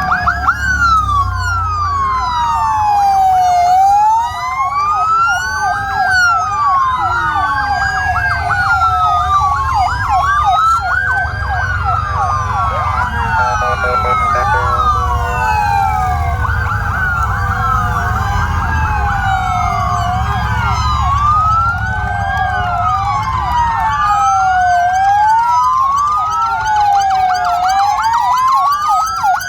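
Many police and gendarmerie vehicle sirens wailing at once, their slow rising and falling wails overlapping out of step, over the low rumble of the convoy's engines.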